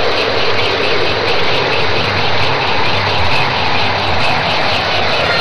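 Loud, steady wash of dense noise that fills the lows and mids evenly, with no beat or pauses, like a jet engine.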